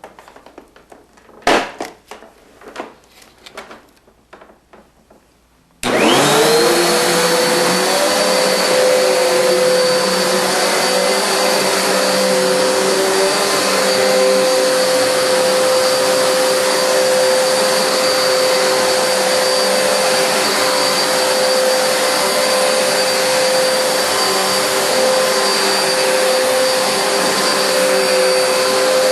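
Hoover Nano Lite bagless upright vacuum cleaner: a few clicks and knocks, then its motor switches on about six seconds in. It spins up with a rising whine and then runs steadily and loudly with a constant whine.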